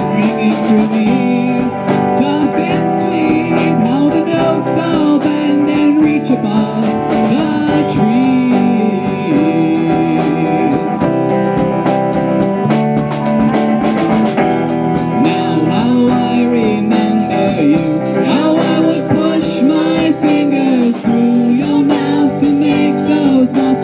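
Live band playing an instrumental passage of a folk-rock song: electric guitar, bass guitar and drum kit, with a melody line that slides between notes.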